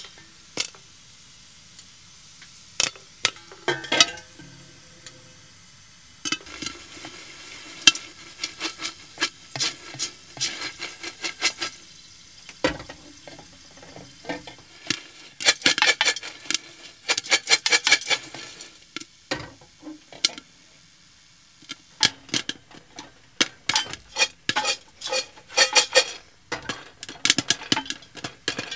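Cooking in a pot on a gas stove: a spoon stirring and scraping against the pot and a stainless steel lid clinking as it is lifted and set down, over a faint sizzle of frying food. The clinks and scrapes come in quick runs about halfway through and again near the end.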